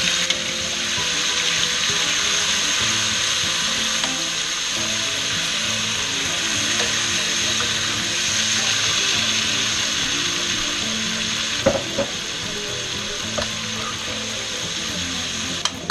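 Raw chicken pieces sizzling steadily as they fry in hot bacon grease and olive oil in a skillet. A few short clinks of a utensil against the pan come about three-quarters of the way through.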